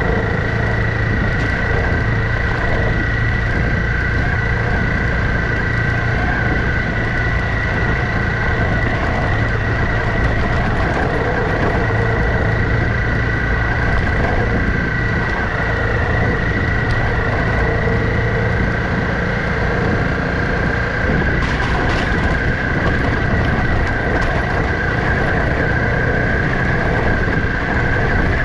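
Honda CRF trail motorcycle's engine running steadily at an even cruising speed on a rough dirt track, with wind noise on the microphone. A couple of short knocks come about three-quarters of the way through.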